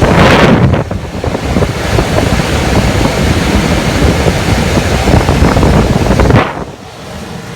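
Loud rush of air from a Trane rooftop unit's blower buffeting the microphone, a wind-like noise with no clear tone that cuts off about six and a half seconds in.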